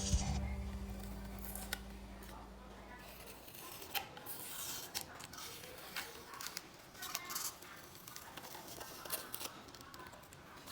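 Background music dying away over the first few seconds, then scattered light clicks and rubbing from small-object handwork.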